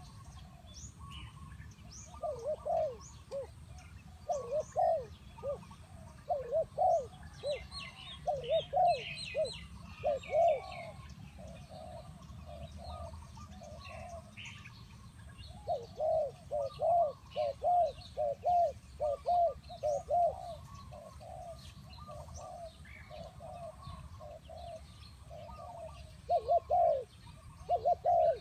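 Spotted dove cooing in repeated runs of short, low phrases, pausing for a few seconds between runs, while small birds chirp faintly in the background.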